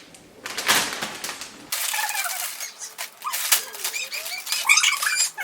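A bag of Takis rolled tortilla chips being torn open, with a short burst of crinkling plastic about half a second in, followed by high, squeaky sounds that rise and fall in pitch.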